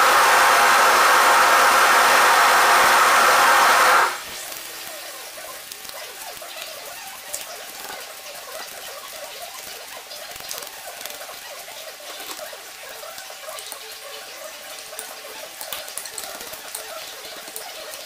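A loud, steady rushing noise cuts off suddenly about four seconds in. After that comes the soft crackling and squishing of a brush and a ribbed laminating roller working resin into wet chopped-strand fiberglass mat, with small irregular clicks.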